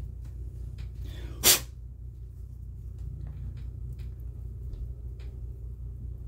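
Faint small clicks and taps from a 1977 Corvette electromechanical clock movement being handled, over a steady low hum. One short, loud burst of noise comes about a second and a half in.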